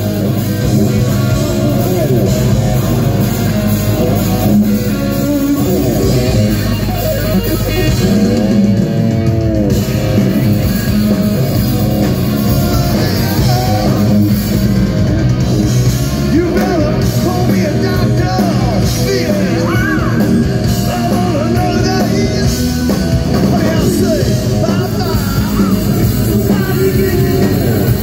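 Live hard rock band playing loud through a PA: electric guitar, bass guitar and drums, with a lead singer's vocals.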